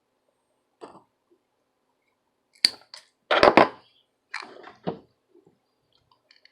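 Tools and small parts handled on a workbench: separate clicks and knocks, a sharp click about two and a half seconds in, then the loudest cluster of clatter, and a few more knocks around five seconds.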